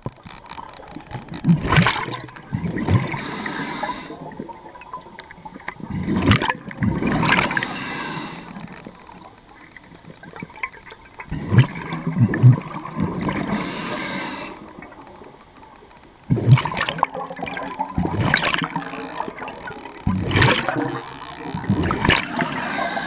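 Scuba diver breathing through a regulator underwater: about five breaths, each ending in a gurgling rush of exhaled bubbles, every four to five seconds.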